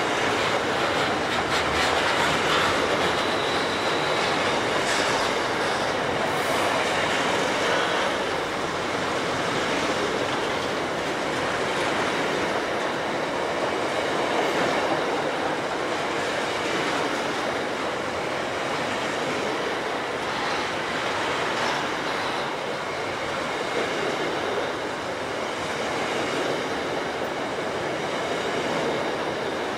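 Container wagons of a Pacific National intermodal freight train rolling past close by: a steady rumble with the clatter of wheels on the rails.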